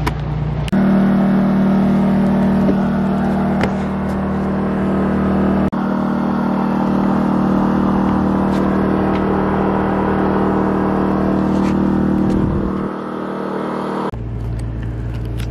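A motor running steadily, an even hum that holds one pitch. The hum changes abruptly about a second in and again near the end, where a lower hum takes over.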